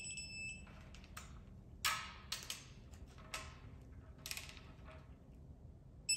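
Digital torque wrench tightening the cylinder head bolts on an LQ4 6.0 L LS V8. It gives a short electronic beep as a bolt reaches its set torque, then a few ratchet clicks and metal clanks as the socket is moved on to the next bolt, and beeps again near the end.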